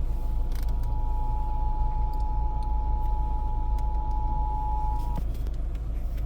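Emergency Alert System attention signal heard over FM radio: the steady two-tone alarm holding one pitch, then cutting off abruptly about five seconds in. A steady low rumble runs underneath.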